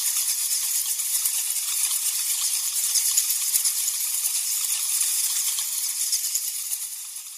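Rattlesnake shaking its tail rattle: a steady, high, dry buzz of very rapid clicks that fades toward the end.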